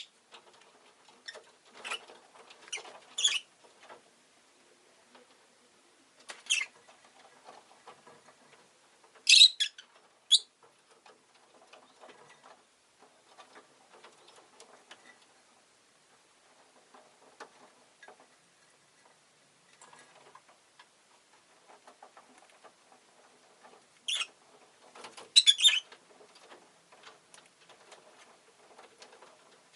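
Rosy-faced lovebird giving short, sharp, high-pitched chirps, a few at a time, with a long pause before a last cluster near the end. Soft scratching and pattering fills the gaps.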